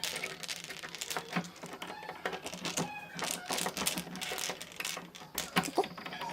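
Irregular metallic clicking and rattling from the parts of a Yale lever door lockset being handled and fitted onto the door.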